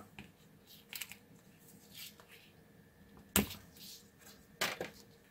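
Quiet handling of a phone battery being wrapped with tape by hand: faint rubbing and a few sharp clicks, the loudest about three and a half seconds in.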